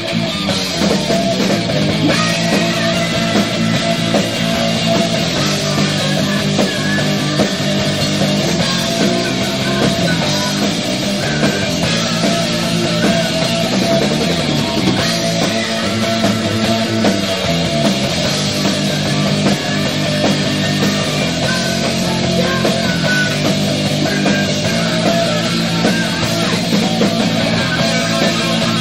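New Wave of British Heavy Metal band playing live, with two distorted electric guitars over bass guitar and drums.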